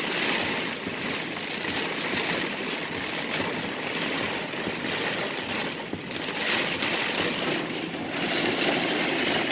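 Heavy rain beating down on a car, heard from inside the cabin as a steady, loud hiss that swells and eases slightly.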